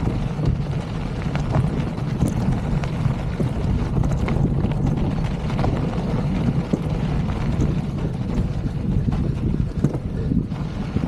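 Wind buffeting the microphone as a Polygon Siskiu mountain bike rolls over a sandy, stony desert track. The knobby tyres crunch underneath, with scattered small clicks from gravel and the bike.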